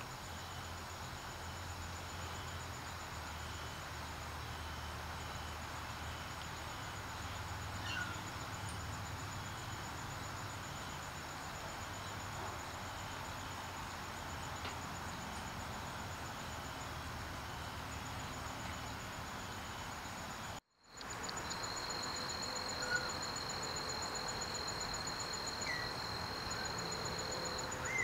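Outdoor ambience: a steady hiss under a high, continuous trill, with a few brief bird chirps. The sound cuts out for a moment about 21 seconds in and comes back with a second steady high tone.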